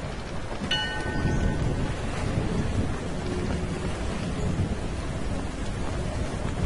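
Storm ambience: continuous low rumbling thunder with rain. A short ringing tone sounds about a second in.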